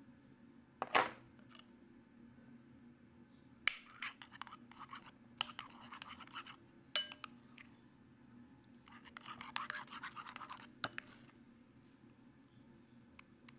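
Scratching and scraping in short bouts with scattered clicks, as of a utensil working slime ingredients against a container, with one sharp ringing clink about a second in.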